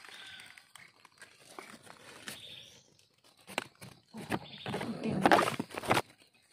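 Dry leaf litter crackling and rustling as a hand brushes it aside and fingers scrape at the soil, with scattered small crackles at first and a louder burst of crackling and scraping about two thirds of the way in.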